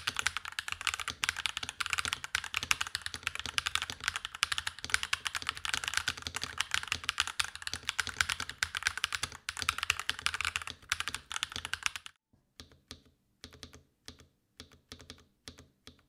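Fast typing on a NuPhy Halo 65 mechanical keyboard with tactile Baby Kangaroo switches: a dense, continuous clatter of keystrokes. About twelve seconds in the typing stops and gives way to the space bar pressed over and over, separate clicks about two or three a second.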